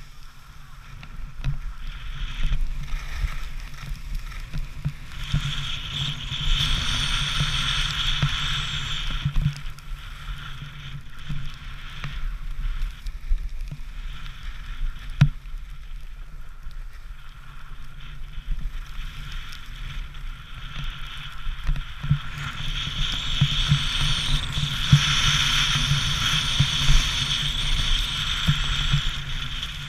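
Wind buffeting a helmet or body-mounted camera microphone during a downhill ski run, with the hiss of edges sliding over packed snow. The hiss swells twice, about five seconds in and again from about twenty-two seconds in.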